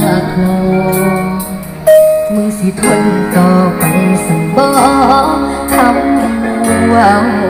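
A song with a singer's voice over plucked-string and bass accompaniment, played loud through a pair of Nakachi 12-inch 400 W speaker cabinets driven by a Nakachi power amplifier.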